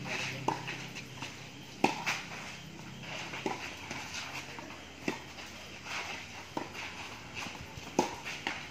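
Tennis rally: sharp pops of a tennis ball struck by racket strings, one about every second and a half, the loudest about two seconds in.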